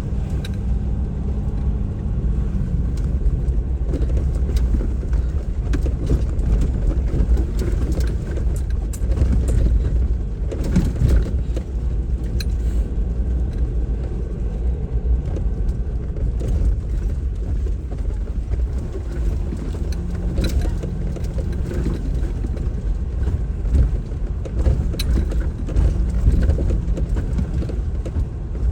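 A 4x4 driving slowly over a rough dirt trail: a steady low engine and road rumble, with scattered short knocks and rattles.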